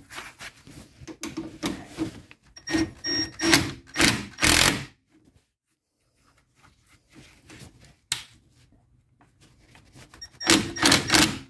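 A string of knocks and clunks from hand work on a car's rear parking-brake cable and its fittings while it is being refitted and adjusted, loudest about four to five seconds in and again near the end, with a short near-silent pause between.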